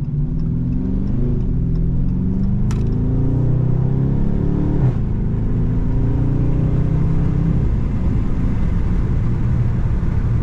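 Dodge Charger R/T's V8 engine accelerating, heard from inside the cabin, its note climbing with two breaks about three and five seconds in as the transmission shifts up.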